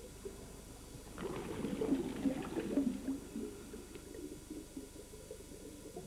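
Watery gurgling and bubbling, irregular and low-pitched, swelling louder between about one and three seconds in.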